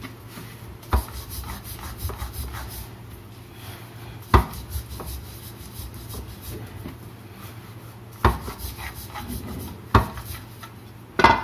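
Rolling pin rolling out a stuffed paratha on a rolling board: a soft rubbing broken by about five sharp knocks.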